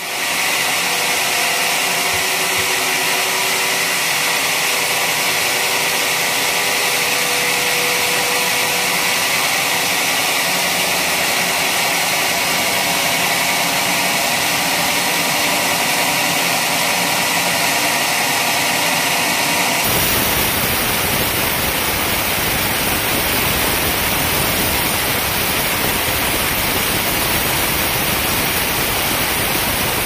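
Band sawmill running steadily as its blade saws coconut-palm logs. About two-thirds of the way in, the sound changes abruptly from a hiss sitting high in pitch to a fuller, even rushing noise.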